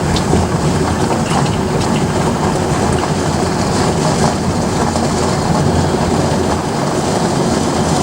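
Steady road and engine noise of a moving vehicle, an even rumble with no strong events.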